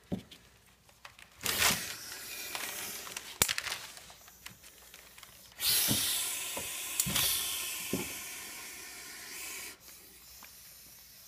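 Red-tailed boa hissing: a short hiss about a second and a half in, then a longer, steady hiss that starts abruptly about five and a half seconds in and fades away over about four seconds. A few light knocks come in between.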